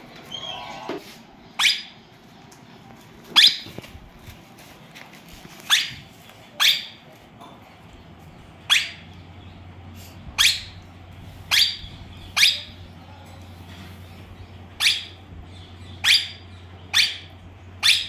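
Indian ringneck parakeets giving short, sharp calls, about a dozen at irregular intervals of one to two seconds.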